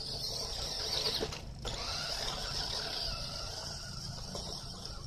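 Toy RC car's small electric motor and gears whining as it drives over sand, a steady high whine.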